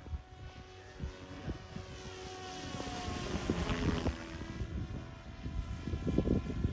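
Raw 420 radio-controlled helicopter flying overhead, its rotor and motor giving a steady whine. The whine grows loudest as it passes close about four seconds in, with a gusty low rumble near the end.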